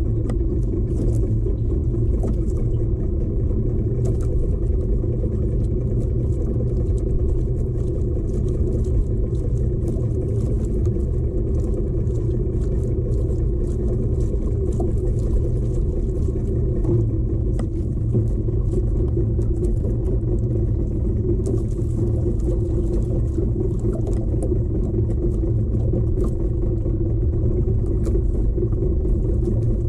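Outrigger fishing boat's engine running steadily while the boat is under way, a continuous low drone with no change in speed.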